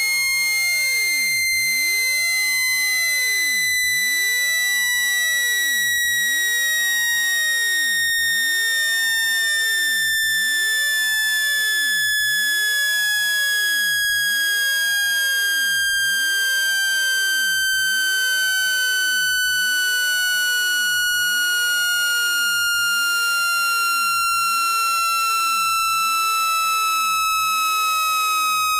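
Speaker-cleaning tone for ejecting water and dust from a phone speaker: a loud, steady synthetic tone with overtones, sinking slowly and evenly in pitch.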